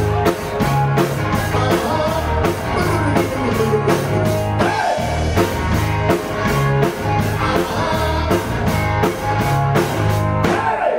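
Live rock band playing an upbeat rock song: drum kit keeping a fast, steady beat under electric guitar and bass, with singing.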